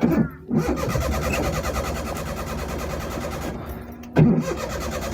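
Car's starter motor cranking the engine over in a steady, rapid rhythm without it catching: the engine turns over but won't start. A brief louder sound cuts in about four seconds in.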